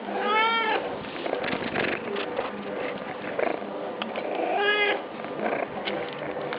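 A cat meowing twice in short calls, each rising then falling in pitch, with rustling and small clicks between them.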